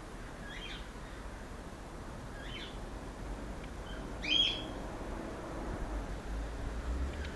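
A bird calling in three short chirps about two seconds apart, the last one loudest, over a low steady rumble.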